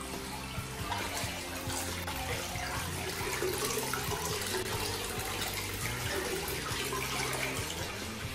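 Hot spring water running steadily from a tap through a wooden box and splashing into a tiled bath.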